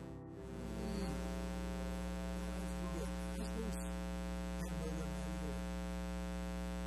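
Steady electrical mains hum, a low buzz made of many even tones, with a few faint brief sounds over it.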